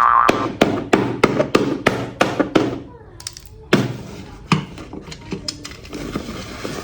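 Spinning prize wheel clicking as its pointer flicks past the pegs: quick clicks about four a second that slow and spread out as the wheel runs down.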